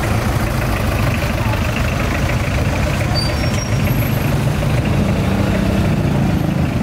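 An engine idling with a steady low rumble, under the chatter of many voices.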